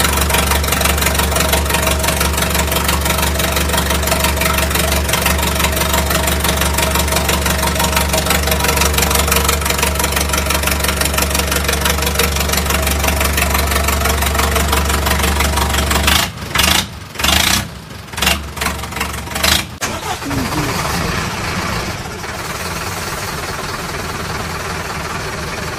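Heavy engine sound like a diesel tractor running steadily with a rapid even pulse. About two-thirds through it cuts in and out several times, then gives way to a quieter, thinner engine sound.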